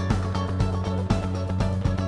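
Background music with a steady drum beat over sustained bass notes.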